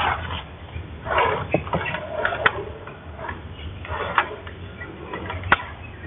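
A dog yelping and barking in about five short bursts, with a couple of sharp clicks.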